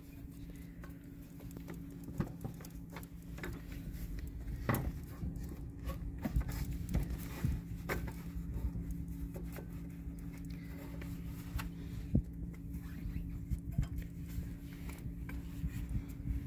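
Scattered light clicks and rustles of hands working a new rubber serpentine belt over the engine's pulleys, with a steady low hum underneath.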